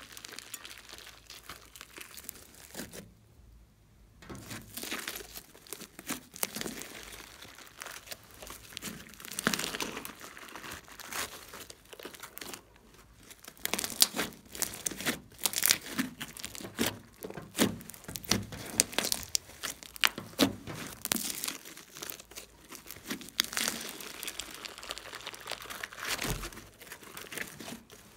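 Hands stretching, folding and squeezing a large lump of fluffy slime, making dense, irregular sticky crackling and tearing sounds, with a short pause about three seconds in.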